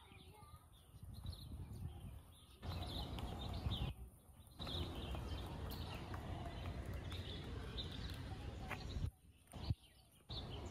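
Birds chirping in the park's trees over a low rumble that starts abruptly about two and a half seconds in and cuts out suddenly twice.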